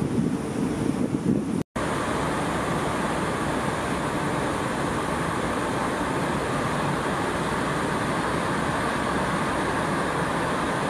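Car ferry under way, heard from its open deck: gusty wind and water wash for the first couple of seconds. Then, after a sudden break, a steady, even rush of the ship's running noise and churning wake.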